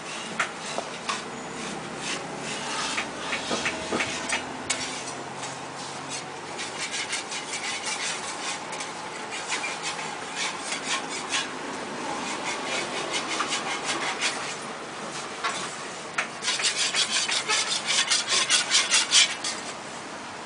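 Scraping of a tool across a large round crepe griddle, in rapid rhythmic strokes several times a second. The strokes come in runs, and the loudest, most regular run comes near the end as the thin crepe is worked loose from the griddle.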